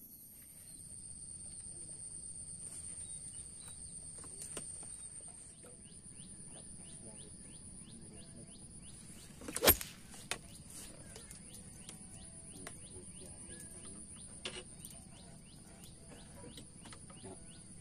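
Steady high-pitched insect buzzing with scattered short bird chirps. A single sharp knock about ten seconds in is the loudest sound.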